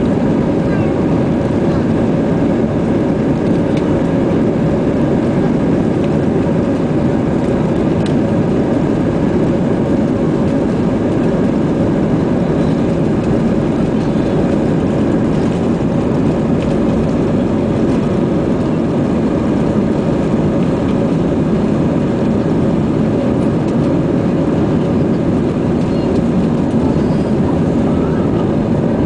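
Airbus A320 on its takeoff roll heard from inside the passenger cabin: a loud, steady roar of the jet engines at takeoff power, with no change in level.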